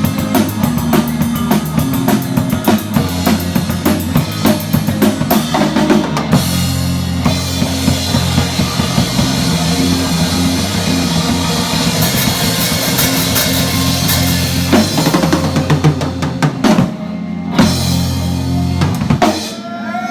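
Live band playing, with the drum kit heard close and loudest: bass drum, snare and cymbals in a busy beat over steady bass notes. It breaks off briefly near the end, then comes back with a few more hits.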